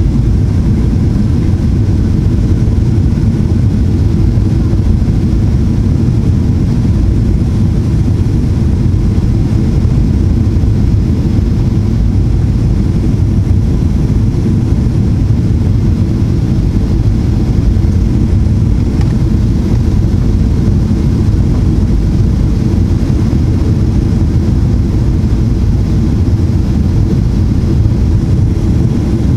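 Steady loud rumble inside the cabin of a Boeing 737-800 on final approach, from its CFM56-7B engines and the airflow over the airframe with flaps extended.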